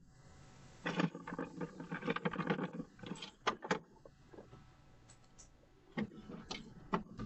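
Someone going through an unlocked car, heard through a doorbell camera's microphone: irregular rattling and rustling, a few sharp clicks about three and a half seconds in, and more knocks near the end.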